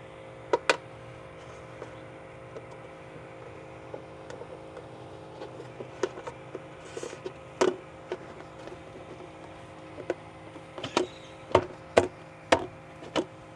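Scattered sharp knocks and clicks over a steady hum, coming faster, about two a second, near the end.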